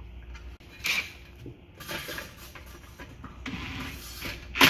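Handling noise from work on a small outboard's recoil starter: scrapes and clicks of small metal parts and tools on a metal workbench, with a sharp loud knock near the end.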